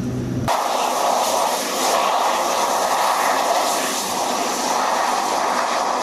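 Propeller airliner's engines running on the ground, a steady rushing noise with a faint steady whine. About half a second in, a cut ends the lower droning hum of the aircraft cabin.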